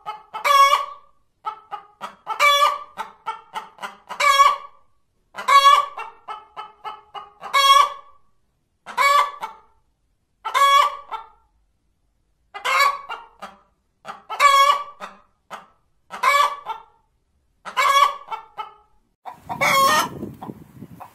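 A hen cackling: a run of short clucks builds into one long, loud squawk, the pattern repeating about every two seconds, about ten times. This is the cackle hens give after laying an egg. Near the end a rougher, noisier sound joins in.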